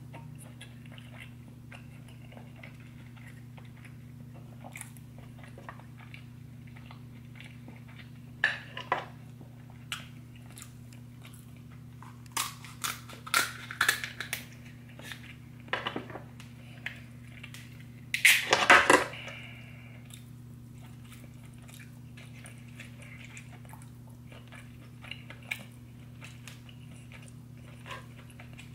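Close-miked chewing and biting of butter-drenched seafood boil, mostly soft with a few loud bursts of bites near the middle.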